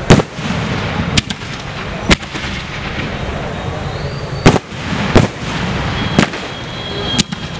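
Aerial colour firework shells bursting overhead: about seven sharp bangs at uneven intervals, over a steady background of crackle and rumble.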